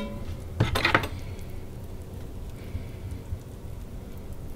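Two light metallic clinks, one at the start and one about a second in, as the wire rack of seared goose chunks settles in the Ninja Foodi's metal inner pot and the chunks are arranged, over a low steady hum.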